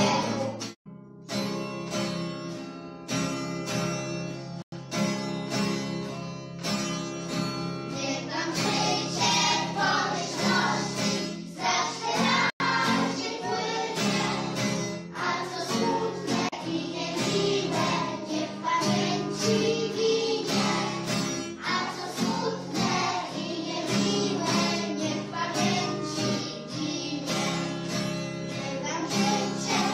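Background song with singing voices over a plucked guitar accompaniment. The music drops out for a moment about a second in, then carries on.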